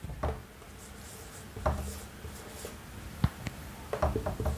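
Marker pen writing on a whiteboard: short separate scratching strokes, with a sharp tick about three seconds in and a quick run of strokes near the end.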